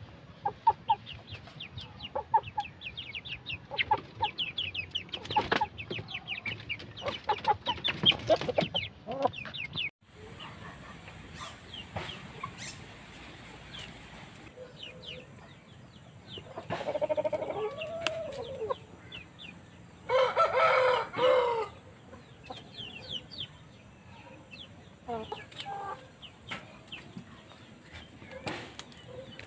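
Shamo and Asil gamefowl chickens clucking and calling, with rapid high chirping through the first third. About two-thirds of the way through, a rooster gives a short, loud crow, a few seconds after a lower call.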